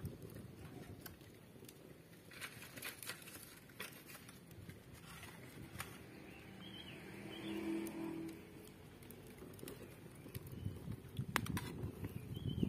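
Faint outdoor ambience with a few short bird chirps. A brief low hum swells and fades about halfway through, and a few sharp crackles come near the end from the wood fire under the wok.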